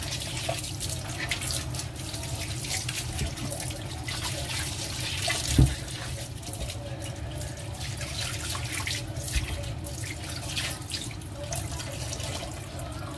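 Kitchen tap running into a sink, the water splashing over cucumbers being rinsed and rubbed under the stream. A single dull knock about halfway through stands out above the running water.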